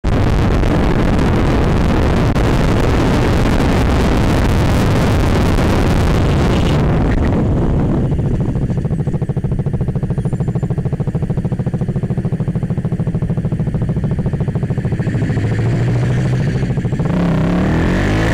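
Heavy wind rush over a motorcycle-mounted camera at road speed, giving way about seven seconds in to a KTM Duke 200's single-cylinder engine running in traffic, which revs up near the end.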